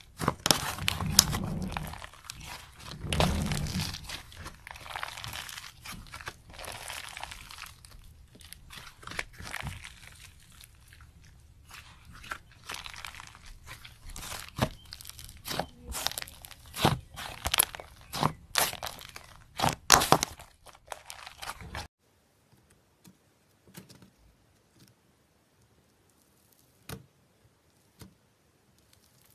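Slime being squeezed and worked by hand, with a dense run of crackling, crunching pops and clicks. It stops about two-thirds of the way through, leaving only a few faint clicks.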